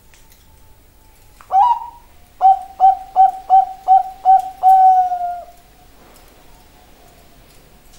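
Bangkok-strain zebra dove (perkutut) singing its cooing song: one sharp opening note about a second and a half in, then after a short pause six quick notes and a longer held final note.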